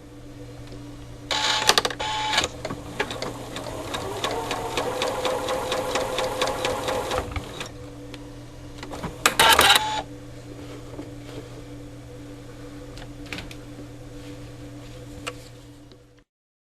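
Pfaff Creative 2170 computerized sewing machine stitching, with a steady motor hum under it. Louder fast runs come about a second in and again near ten seconds, with evenly ticking stitching between, and the sound cuts off shortly before the end.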